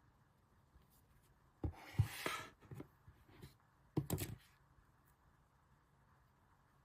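Merchandise and packaging being handled: two knocks with a brief rustle about two seconds in, then another short clatter of handling about four seconds in.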